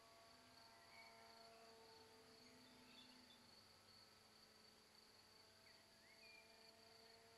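Near silence, with only a faint steady high-pitched whine.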